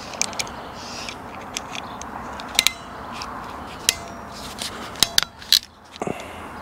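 Irregular sharp clicks and snaps from a hand crimping tool being worked as its dies are swapped, with a cluster of louder snaps about five seconds in.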